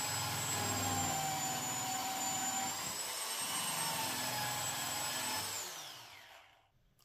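Cordless drill spinning a Norton fast-stripping abrasive disc against the edge of a painted pine door, a steady high whine as it strips paint. About five and a half seconds in the trigger is released and the whine falls in pitch and dies away as the disc spins down.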